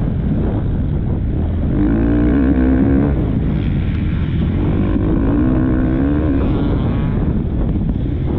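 Motocross bike engine running hard under throttle, its note surging and wavering twice, about two and five seconds in, heard from a helmet-mounted camera with wind buffeting the microphone.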